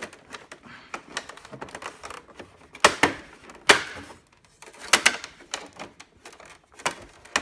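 Plastic parts of a Brother inkjet printer clicking and rattling as the cable supports holding its ribbons and wires are pulled out and handled. The sound is a string of sharp clicks, the loudest about three and four seconds in.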